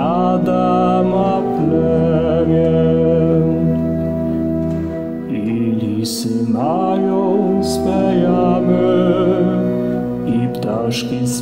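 A Christmas carol played on organ with held chords and bass notes, with a voice singing the melody. A new phrase begins at the start and again about six and a half seconds in.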